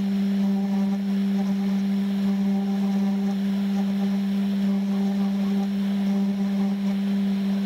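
Spindle motor of a SainSmart Genmitsu 3030 PROVer MAX desktop CNC router running at a steady speed, a constant whining hum with overtones, as its small bit engraves lettering into plywood.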